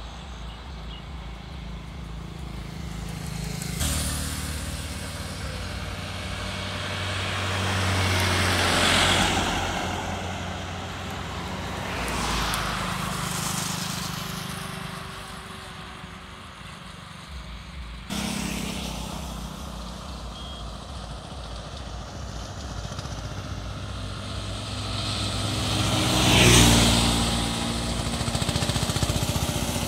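Road traffic passing on a highway: cars and motorbikes approach, swish past and fade away one after another over a low engine hum, with the loudest pass near the end.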